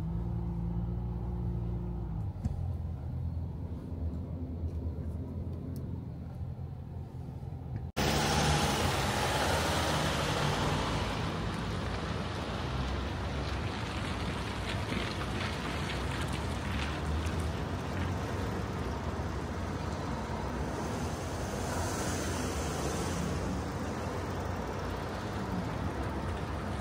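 Pickup truck on the move: for the first eight seconds a low engine hum heard inside the cab. After a sudden change about eight seconds in, the pickup is heard from outside, engine running and tyres on asphalt, as it tows a trailer carrying a mini excavator slowly across a paved forecourt.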